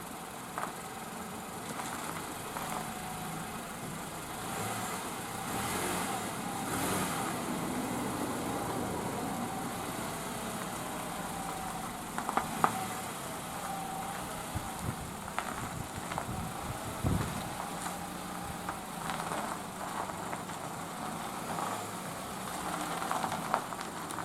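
A motor vehicle's engine running steadily, with a few sharp knocks about halfway through.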